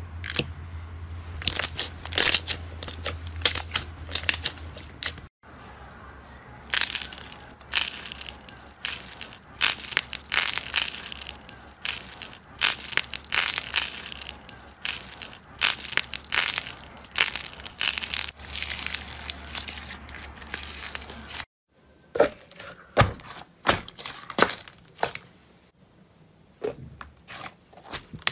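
Slime being poked, squeezed and pressed by hand, making rapid sharp pops, crackles and squelches as trapped air bursts, over a steady low hum. About 5 and 21 seconds in the sound cuts to a new clip, and the last stretch has fewer, more separate pops.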